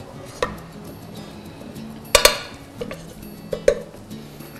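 Metal kitchen utensils clinking and knocking against cookware, as in serving or stirring in a pan. There are a few separate knocks, the loudest a quick double clink about two seconds in.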